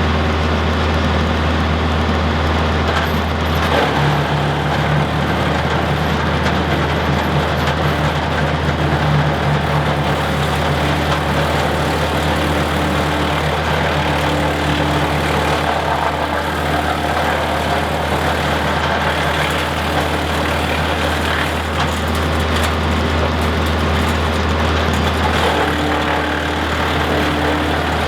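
Mahindra tractor engine running steadily, driving a WoodMaxx PTO wood chipper. Its low drone shifts about four seconds in, and a few brief sharp sounds come through.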